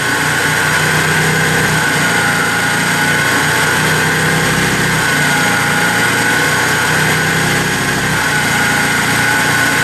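Pulsed-coil electric motor turning a generator, running steadily with a constant high whine over a low electrical hum as the generator starts to be loaded.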